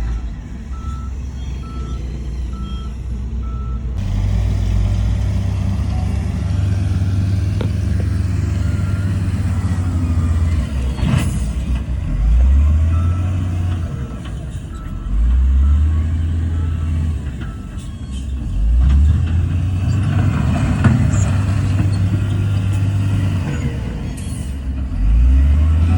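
Heavy diesel earthmoving machinery (bulldozer and dump truck) working. A reversing alarm beeps steadily for the first few seconds. After that the engine runs under load, revving up several times.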